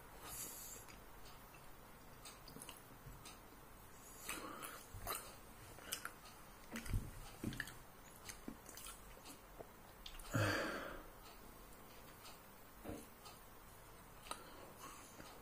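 Close-up mouth sounds of a person chewing a ham sandwich roll: soft, irregular clicks and smacks, with one louder noise about ten seconds in.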